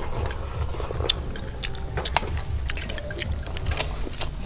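Chopsticks and spoons clicking against ceramic bowls at a shared meal: a scatter of light, irregular clinks of tableware over a low, steady rumble.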